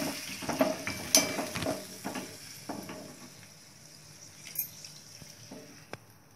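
Water poured into chicken frying in a steel kadhai, hissing and sizzling on the hot pan, with a metal spatula scraping and clacking against the pan. The sizzle fades after about two seconds, leaving a few light knocks.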